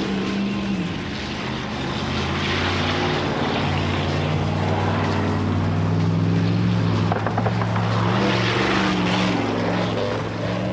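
Engines of Chevrolet Camaros and a motorcycle running together in a steady drone as they drive in close formation, with a short rise and fall in pitch right at the start.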